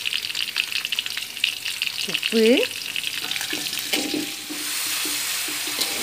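Sliced red onion and garlic sizzling in hot oil in a stainless steel wok, with a metal slotted spatula scraping and clinking against the pan as they are stirred. The clinks and scrapes die down after about four and a half seconds, leaving a steady sizzle.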